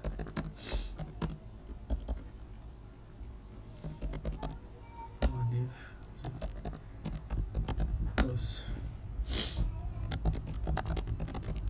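Typing on a computer keyboard: irregular runs of key clicks as git commands are entered. There is a dull thump about five seconds in and a few short hisses.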